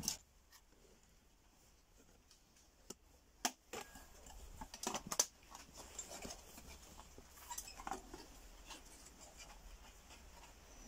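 Scattered small clicks and taps of plastic and a hand tool as a washer-dryer's control board is prised out of its plastic housing, the sharpest coming a few seconds in.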